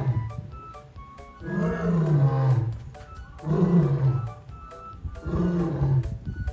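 Lion roaring in a bout of three long, deep calls about two seconds apart, each falling in pitch, with background music underneath.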